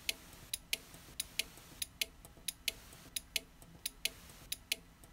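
Light, sharp clicks in pairs, a pair about every three-quarters of a second, keeping an even tick-tock rhythm throughout.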